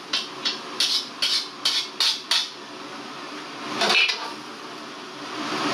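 A spatula scraping food out of an iron wok into a clay pot: about seven quick scrapes in the first two and a half seconds, then one longer scrape about four seconds in.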